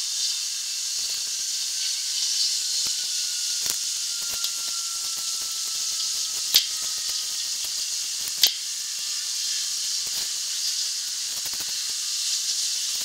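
Steady high hiss in the background, with faint knocks and two sharp metallic clicks, about six and a half and eight and a half seconds in, as a hydraulic floor jack is pumped under a steel shipping container.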